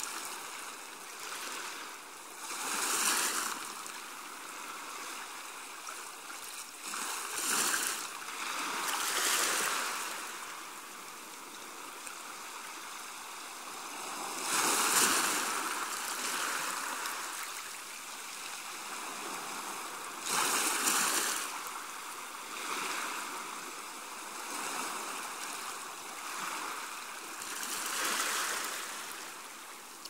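Small waves washing gently onto a sandy shore: a steady hiss of water with about seven softer surges, each swelling and fading over a second or two, a few seconds apart.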